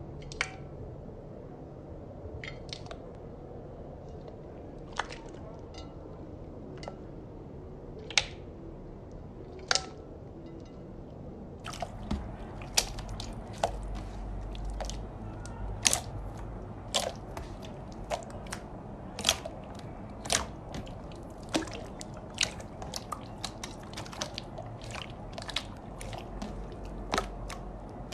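Slime being squished and pressed by hand, giving wet, sticky popping clicks: a few scattered pops at first, then a quicker run of them, about one or two a second, from about halfway through.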